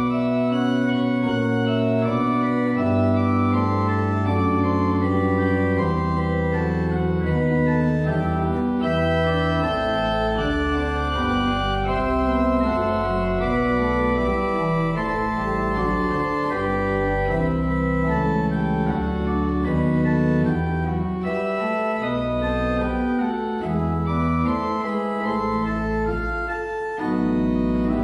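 Pipe organ playing held chords, the notes changing about once a second over deep bass notes.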